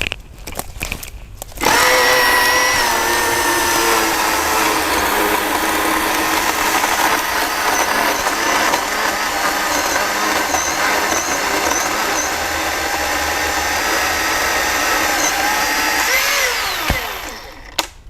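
Milwaukee M18 FCHSC cordless battery chainsaw running with a steady electric whine, its pitch sagging a little a couple of seconds in, for about fifteen seconds, then winding down and stopping as the trigger is released.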